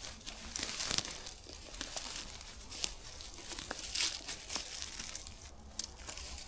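Irregular rustling and crinkling with scattered small clicks and crackles.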